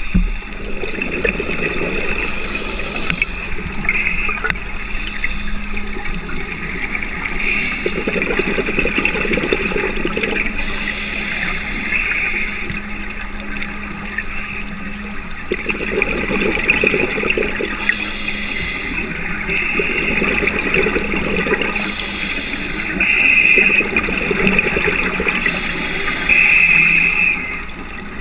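Scuba diver breathing through a Mares MR42 Abyss regulator, heard through an underwater camera housing. Hissing inhalations alternate every few seconds with longer bursts of bubbling, gurgling exhaust as exhaled air leaves the regulator.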